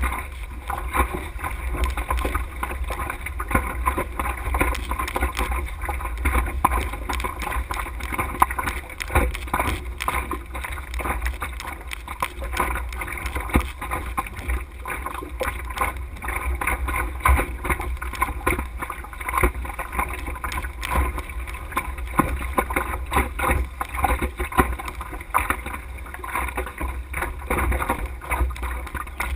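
Wind buffeting the microphone of a masthead camera on a sailing dinghy, a dense low rumble over the steady rush of wind and water, broken by constant small ticks and rattles.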